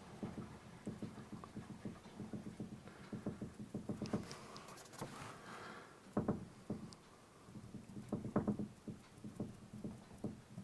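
Tip of a small artist's paintbrush dabbing and poking against a painted backdrop board, an uneven run of soft taps several a second as tree shapes are daubed on.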